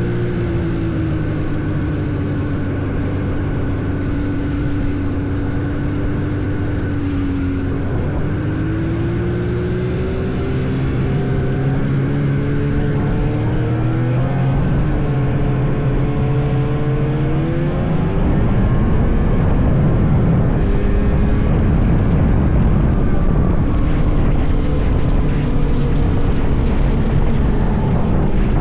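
Vintage snowmobile engine running under changing throttle, its pitch gliding up and down several times. It gets louder and rougher about two-thirds of the way through.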